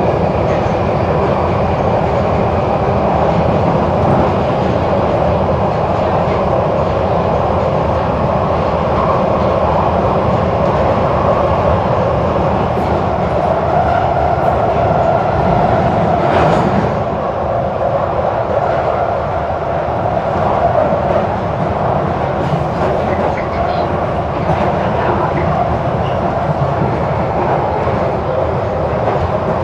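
London Underground 1972 Tube Stock train running at speed through a tunnel, heard from inside the carriage: loud, steady running noise of wheels on rail and traction equipment, with a brief clatter about halfway through.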